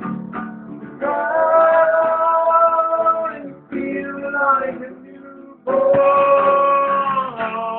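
Guitar played with a voice singing long held notes, twice for a couple of seconds each, with a short stretch of quieter playing between them. The sound is thin and cut off at the top, as a phone recording is.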